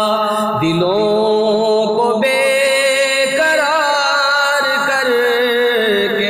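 A man singing an Urdu tarana, drawing the melody out in long held notes that slide from pitch to pitch between the sung lines.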